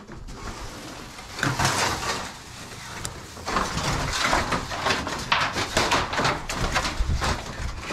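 Scraping and rustling of things being handled and shifted, with a burst about one and a half seconds in and a busier run from about three and a half seconds in.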